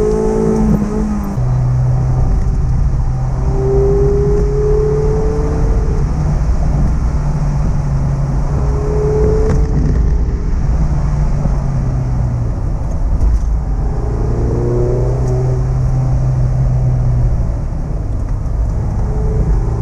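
Mazda MX-5 ND's 1.5-litre naturally aspirated four-cylinder engine with stock exhaust, heard from inside the car, pulling through repeated accelerations: its tone rises in pitch several times and drops back at the gear changes, over steady road rumble.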